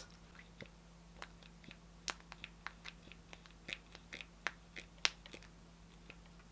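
Plastic pump of a tinted-balm bottle being pressed and handled: a dozen or so faint, irregular clicks, the sharpest about five seconds in.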